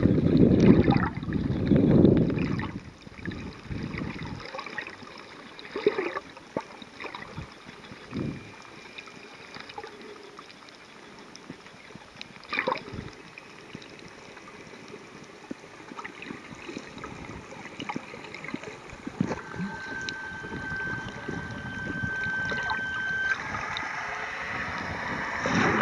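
Underwater sound through a snorkeler's camera: water churning and sloshing over the microphone for the first few seconds, then a quieter, muffled underwater hiss with scattered clicks and knocks. A faint steady tone comes in for a few seconds near the end.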